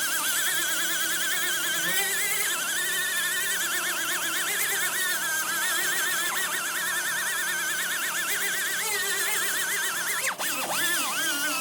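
Angle grinder grinding down weld tacks on sheet-metal door skin, its pitch wavering steadily as it is pressed into the metal, with a brief break about ten seconds in.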